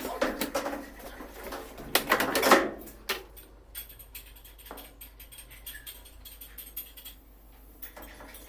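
Knocks and clatter of parts being handled while a washing machine is taken apart, loudest in a cluster about two seconds in, then sparse light ticks.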